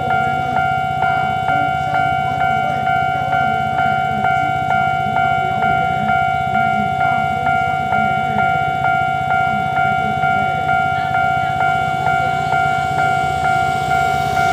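Railroad level-crossing warning bell ringing at an even pace of about two strikes a second, each ring fading before the next.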